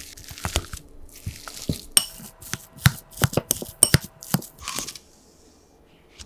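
Boiled potatoes being mashed coarsely with a hand utensil in a glass bowl: soft squishing and crunching with many sharp clicks of the utensil against the glass, stopping about five seconds in.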